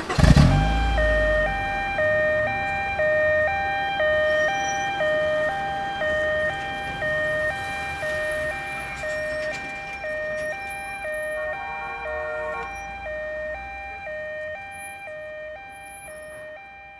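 Two-tone ambulance siren alternating between a high and a low note about once a second, fading steadily away. A loud low thump comes right at the start.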